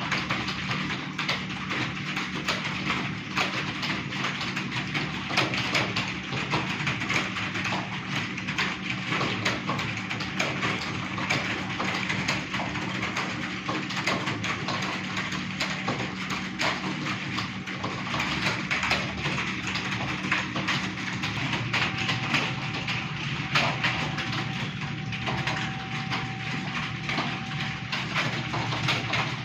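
Rapid, continuous typing on a computer keyboard, many quick keystrokes clattering unevenly, over a steady low electrical hum.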